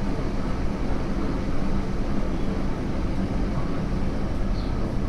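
Tokyo Metro 08 series electric train running between stations, heard from inside the car: a steady rumble of wheels on rail and car-body noise.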